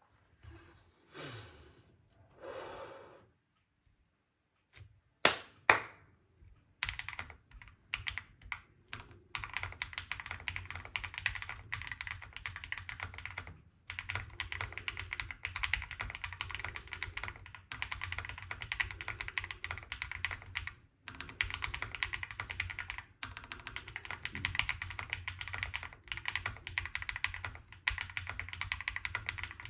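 Custom Owlab Spring mechanical keyboard in a CNC acrylic case being typed on in fast, steady runs of keystrokes, with short pauses between runs. Two sharp clicks come about five seconds in, before the typing starts.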